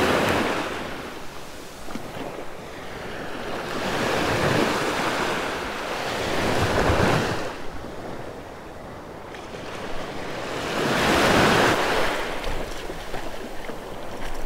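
Small surf breaking on the beach at the water's edge. The wash of the waves swells and fades every few seconds.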